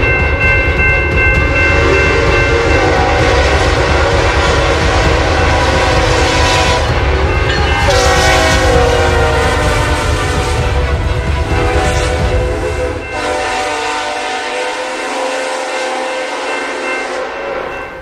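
Train horn sounding several tones at once over the heavy rumble of a moving train. The rumble fades away about two-thirds of the way through while the horn tones carry on more weakly, then the sound drops off at the very end.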